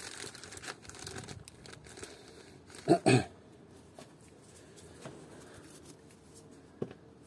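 Rustling and crinkling of wires and materials being handled, then two short loud sounds in quick succession about three seconds in, followed by a few faint clicks.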